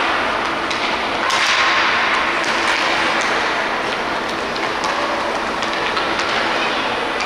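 Ice hockey play on the rink: a steady rasp of skate blades scraping the ice, with scattered sharp clacks of sticks and puck.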